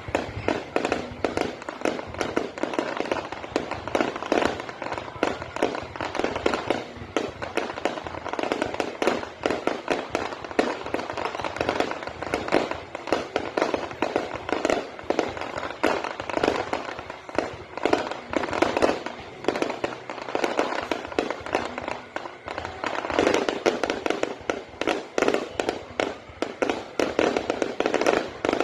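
Fireworks going off in a continuous rapid barrage of bangs and crackles, several per second, growing louder near the end.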